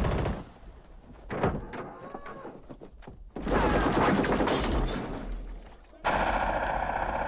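Knocks and crashes of household things being smashed during a hut search, a sharp hit at the start and another about a second and a half in. From about three and a half seconds in comes a loud, dense clatter and commotion, which jumps louder again suddenly near the end.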